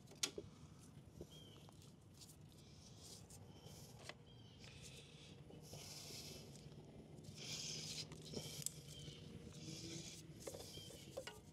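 Faint handling noise from hands working the coolant hoses on a motorcycle: a sharp click near the start, a few more small clicks, and several short bursts of rubbing or scraping in the second half, over a low steady hum.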